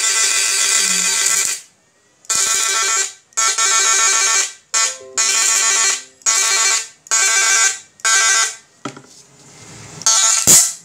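Homemade 7000 W IGBT electric fishing machine buzzing loudly as it discharges into a bucket of water, switched on and off in about eight bursts of a fraction of a second to a couple of seconds each. A sharp click comes near the end.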